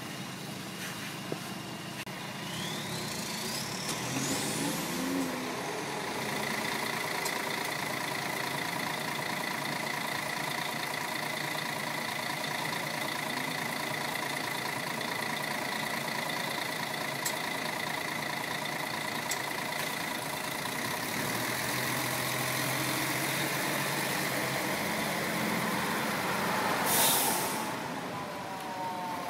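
Street traffic at a tram stop: a city bus pulls away with a whine rising in pitch, followed by a steady hum of engines. Near the end comes a short hiss of air, and an approaching tram's motors start whining downward as it brakes in.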